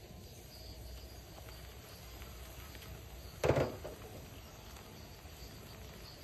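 Large aluminium wok lid lifted off a wok of boiling broth, with one short clank about three and a half seconds in. Insects call steadily in the background.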